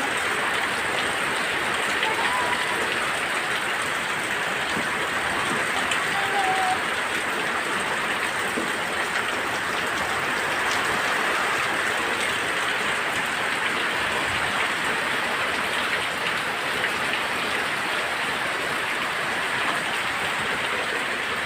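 Heavy rain pouring down steadily in a strong wind storm, an even unbroken hiss.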